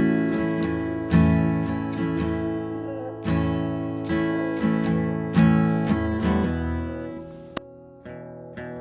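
Acoustic guitar strumming chords about a second apart. The strums thin out, and the last chords ring and fade away near the end.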